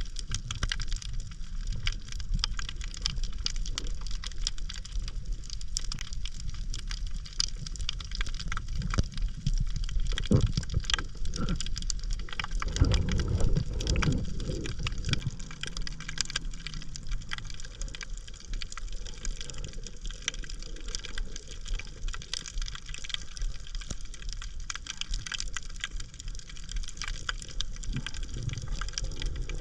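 Water sloshing and gurgling with a constant scatter of small clicks, swelling to a louder low rush from about ten to fifteen seconds in.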